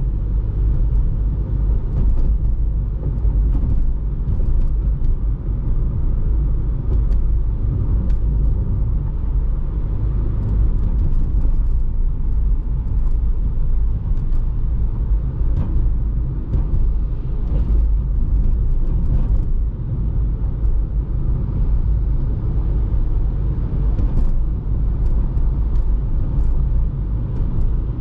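Steady low rumble of a car driving along a city road, tyre and engine noise with no breaks, and faint light ticks now and then.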